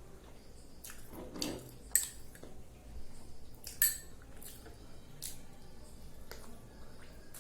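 Cutlery clinking against a dish a few sharp times while eating idli with sambar, with softer eating sounds in between.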